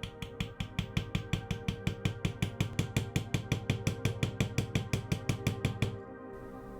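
Rapid, even mechanical clicking, about seven clicks a second, that stops about six seconds in, over background music.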